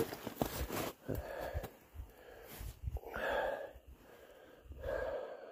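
Footsteps crunching through snow and brush, then two loud breathy exhales from a person out of breath after walking through the snow.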